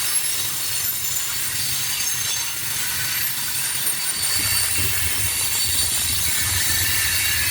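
Train rolling past, steel wheels squealing thinly against the rails, with a low drone growing louder about four seconds in.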